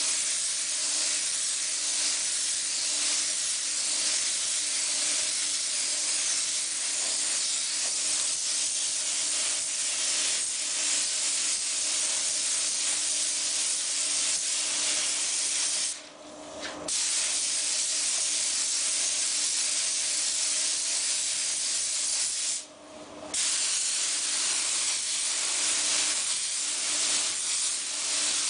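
Hose-fed compressed-air paint spray gun hissing steadily as paint is sprayed onto a car body. It cuts off twice for about a second as the trigger is let go, about 16 and 23 seconds in. A faint steady hum runs underneath.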